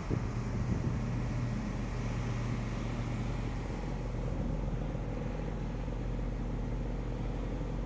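Steady low machinery hum aboard a container ship under way, with some wind on the microphone.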